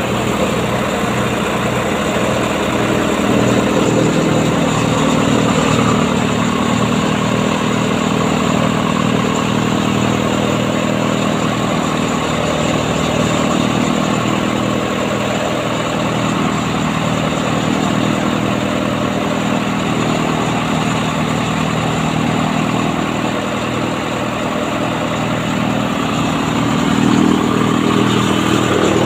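Swaraj tractor's diesel engine running steadily under load, driving a kutti machine that chops straw and blows it out of its chute. A continuous, even drone with a regular low pulse.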